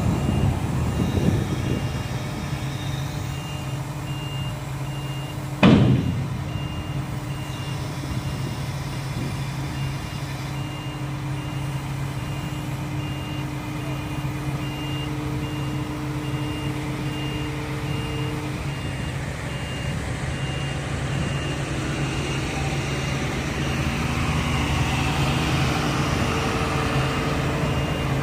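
Case CX220C excavator's diesel engine running under load while its travel alarm beeps steadily as the tracks move, with one loud clank of steel about six seconds in.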